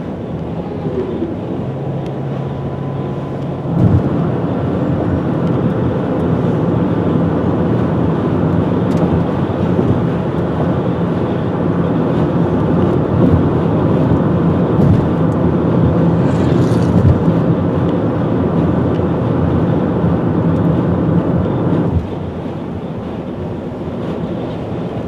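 Road and wind noise of a car moving at highway speed, heard from inside the car, with a steady low engine and tyre hum. It gets suddenly louder about four seconds in and drops back near the end.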